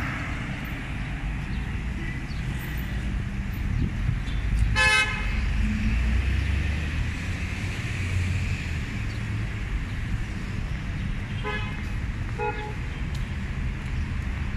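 Street traffic running with a steady low rumble. A car horn toots once about five seconds in, and two shorter toots follow near the end.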